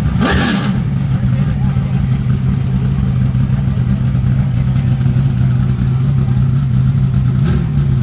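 850-hp Trans Am Series TA-class Corvette race car's V8 engine revved briefly at the start, dropping back to a steady idle, with another rev beginning near the end.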